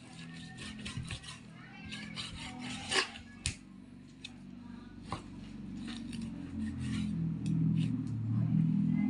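Kitchen knife slicing raw pork shoulder on a cutting board: repeated short scraping strokes, with two sharper knocks about three seconds in. Low background music swells in during the second half.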